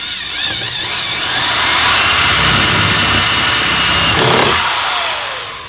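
Cordless drill running and boring through a fiberglass side skirt into the sheet-metal fender behind it. The motor whine wavers in pitch during the first second, then holds steady, and the sound dies away near the end.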